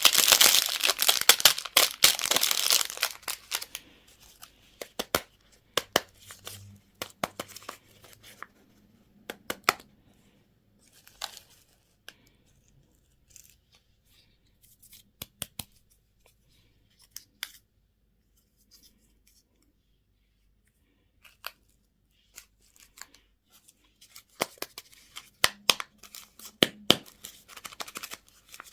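Packaging being torn open and crinkled for about the first three seconds, followed by scattered clicks and taps as things are handled, with another stretch of crinkling and clicks near the end.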